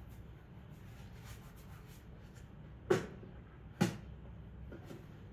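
Two sharp knocks about a second apart, the robot vacuum base station's lid being closed after the detergent tank is refilled.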